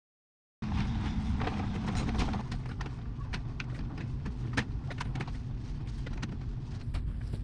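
Metal storage-rack parts being handled and fitted: irregular sharp clicks and light knocks over a steady low rumble, starting suddenly just over half a second in.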